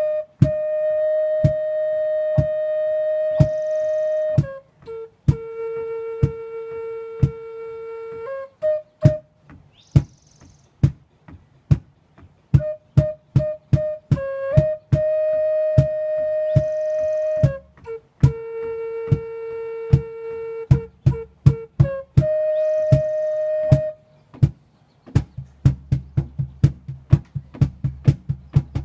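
Wooden end-blown flute playing slow, long held notes that move between two neighbouring pitches, over a steady beat of sharp taps about two a second. Near the end a low accompaniment joins in.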